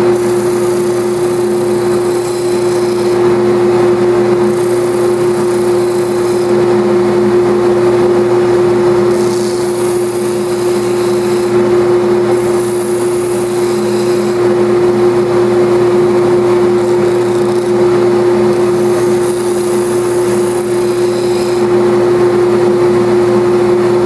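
Balsa wood being sanded on the sanding disc of a belt and disc sander: a high hiss comes and goes over about six passes, over the steady hum of the running sander and dust exhaust.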